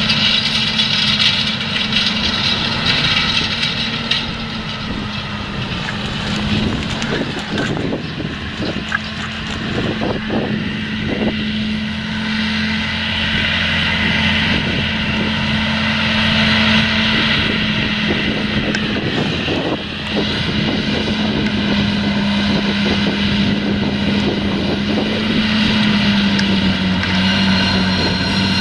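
John Deere 8345R tractor's six-cylinder diesel running steadily under load while pulling a disc cultivator through stubble. Several short knocks come in about eight to eleven seconds in, and the engine note dips slightly near the end.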